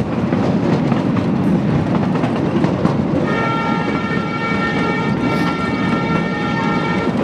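Miniature railway cars rolling along the track with a steady rumble of wheels on rail. About three seconds in, a train horn starts and holds one long steady chord for about four seconds.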